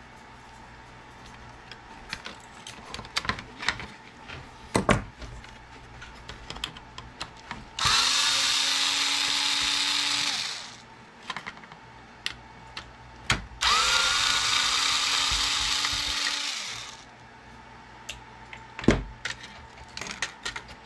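Cordless drill/driver backing screws out of a plastic alarm clock housing. It runs twice, for about three seconds each time, winding down at the end of each run. Sharp clicks and knocks of plastic parts being handled come before, between and after the runs.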